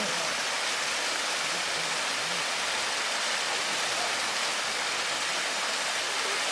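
Mountain stream water rushing over rocks and falling in a waterfall, a steady, even rush of water.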